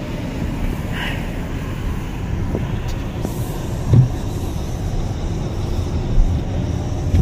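Car cabin noise while driving on a wet road: a steady low rumble of engine and tyres with tyre hiss from the wet pavement, and one low thump about four seconds in.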